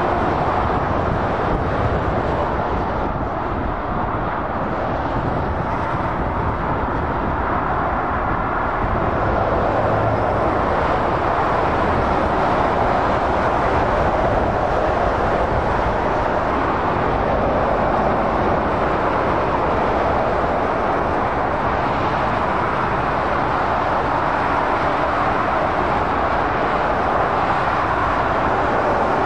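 Heavy motorway traffic, lorries and cars passing below, giving a steady rush of tyre and engine noise that swells a little as nearer vehicles go by.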